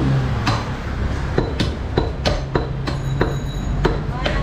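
Butchers' cleavers chopping beef and bone on wooden log chopping blocks: sharp, irregular chops about two to three a second, some with a brief metallic ring.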